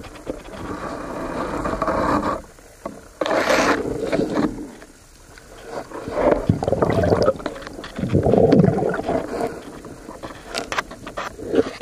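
Muffled underwater water noise as a spearfisher swims with a camera below the surface: irregular swishing swells of water moving past the housing, with a brighter hiss about three and a half seconds in.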